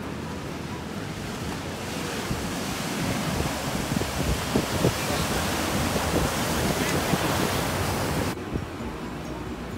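Pacific Ocean surf breaking and washing in, with wind buffeting the microphone. The hiss of the breaking white water swells a couple of seconds in and cuts off suddenly near the end.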